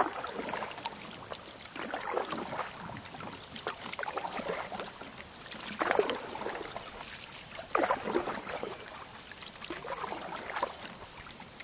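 Canoe paddling on a river: a swish of paddle strokes through the water every couple of seconds, over a steady trickle and lap of water along the hull.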